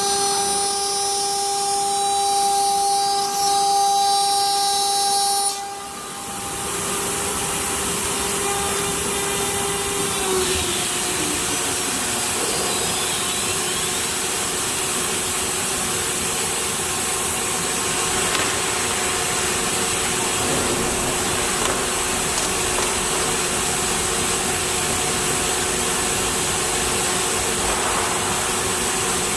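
CNC router spindle milling aluminium sheet, a steady high whine with several tones. About six seconds in it gives way to a steady rushing noise with a lower hum, and near ten seconds one tone slides down in pitch.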